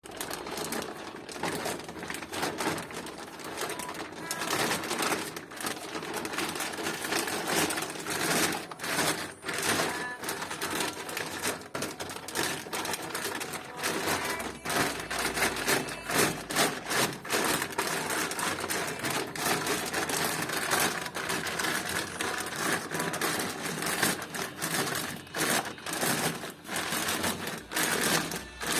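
Dense, irregular clicking and clattering that keeps going without a break, with a scraping noise underneath.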